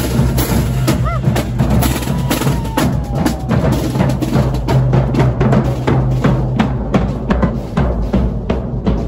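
Marching band playing: bass and snare drums beat a busy rhythm under low held notes from the sousaphones.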